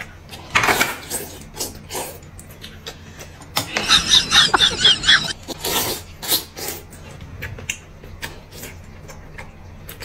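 Noodles being slurped from a bowl of soup, in several noisy bursts; the longest, about four seconds in, lasts more than a second and crackles quickly as air and broth are sucked in with the noodles.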